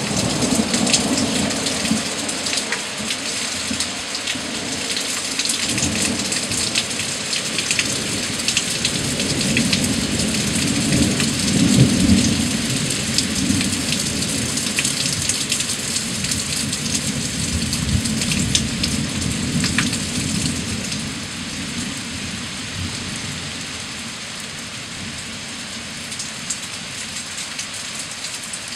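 Heavy rain falling in woodland, many drops ticking over a steady hiss, with rolling thunder underneath. The thunder is loudest about twelve seconds in and dies away over the last few seconds.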